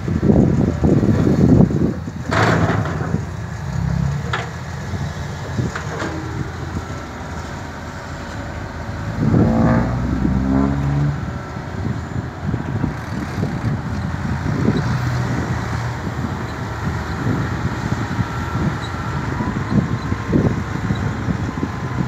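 Diesel engine of a Hitachi Zaxis 200 hydraulic excavator working as it loads soil into dump trucks, with a few sharp knocks in the first six seconds and a brief rise in engine pitch about nine seconds in.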